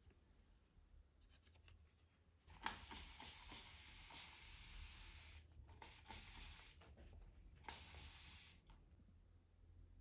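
Spray bottle misting water onto plant leaves in three hissing bursts: a long one starting about two and a half seconds in, then two shorter ones.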